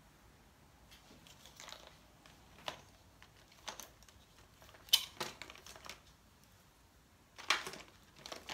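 Brush work and handling of painting materials on paper: scattered short scrapes, light taps and rustles. The sharpest tap comes about five seconds in, and a longer scrape or rustle comes near the end.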